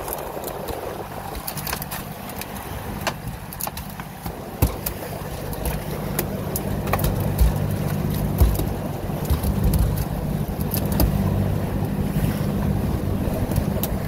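A small fishing boat's engine running steadily under way, with wind and water rushing past the hull and several sharp knocks on deck.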